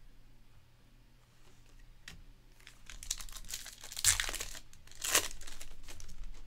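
Foil wrapper of a 2023 Panini Elite Extra Edition baseball card pack being crinkled and torn open by hand. The rustling starts a couple of seconds in, with two sharper, louder moments about a second apart.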